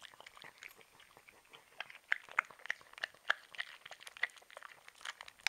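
A dog chewing a small piece of pear: a run of short, irregular wet crunches and mouth clicks, several a second.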